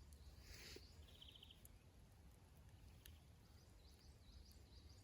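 Near silence with faint bird calls: a short rapid trill about a second in and a few high chirps near the end.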